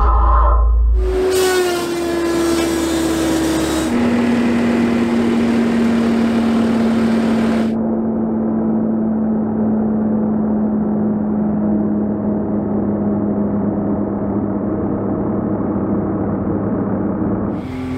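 Skid steer running the FBS752 feller buncher, whose hydraulic motor spins its 52-inch toothed cutting disc, making a steady whine over heavy mechanical noise. The whine drops in pitch a few seconds in, and a harsh hiss cuts off abruptly about halfway through.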